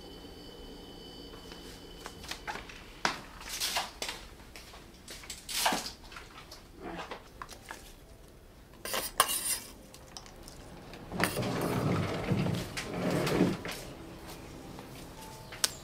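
Kitchen dishes and utensils being handled: scattered light clinks and knocks, then a denser stretch of handling noise lasting about two seconds later on.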